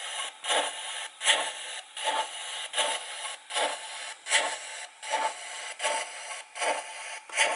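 Sound decoder of a Roco HO-scale DB class 038 model steam locomotive playing slow, regular steam exhaust chuffs through its small speaker, about four every three seconds, with a softer hiss between them.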